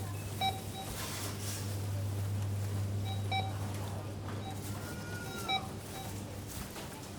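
Supermarket checkout barcode scanner beeping three times, each a short beep a couple of seconds apart, over a steady low hum and faint indistinct store bustle.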